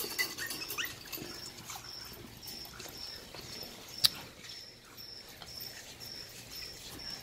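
Maltese puppies moving about, with a few faint short rising whimpers in the first second. A faint high chirp repeats evenly about twice a second throughout, and there is one sharp knock about four seconds in.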